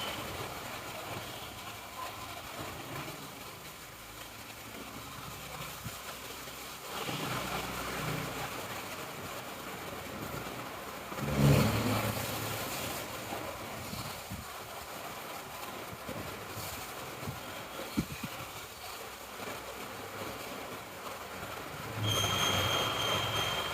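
A sleeping person snoring heavily, with rough rattling snores that swell and fade. The loudest comes about halfway through, and one near the end carries a thin high whistle.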